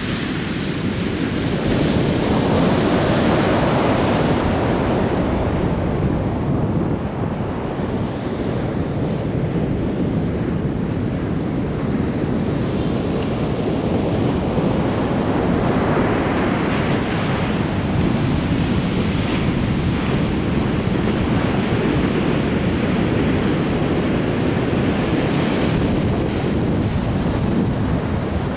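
Atlantic surf breaking and washing up a sandy beach: a continuous rushing wash that swells twice as waves come in, about three seconds in and again around the middle.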